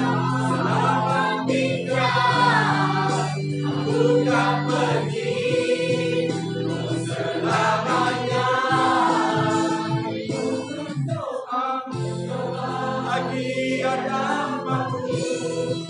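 A song with group vocals over held instrumental bass notes; the low backing drops out briefly about eleven seconds in.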